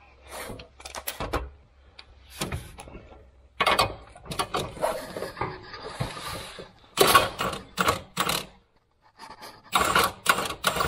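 Ratchet wrench loosening a rear subframe cradle bolt: irregular metal clicks and clanks from the ratchet and socket, with quicker runs of clicks about seven seconds in and again near the end.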